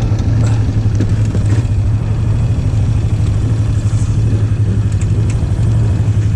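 Polaris Magnum 325 ATV's single-cylinder engine idling steadily, with a few faint clicks and rustles over it.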